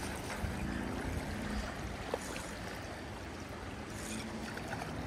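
River current flowing steadily close to the microphone, water rushing past a rock in the shallows.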